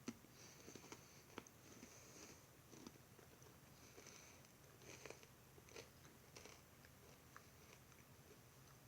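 Faint chewing and crunching of a Nature Valley almond butter granola cup, with irregular small crunches and clicks, over a low steady hum.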